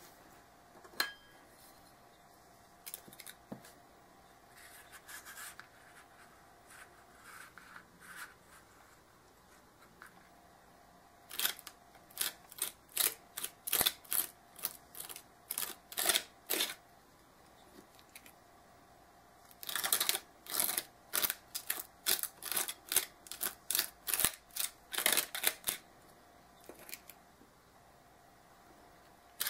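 Metal palette knife scraping sand-filled texture paste across a stencil on chipboard, in quick strokes a few a second. The strokes come in two runs of about five seconds each, after some light taps and clicks.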